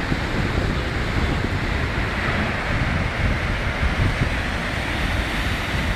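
Atlantic surf breaking and washing in foam over shoreline rocks, a steady rushing, with wind buffeting the microphone in low rumbles.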